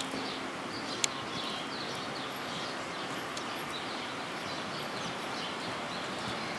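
Small birds chirping faintly and often over a steady background hiss, with one sharp click about a second in.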